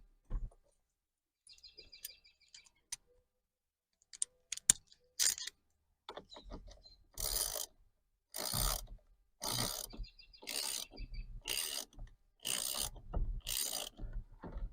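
Hand ratchet with a T50 Torx socket running down the steering wheel's centre bolt, preceded by a few tool clicks. From about halfway through comes a steady rhythm of ratchet strokes, about one a second, seven in all.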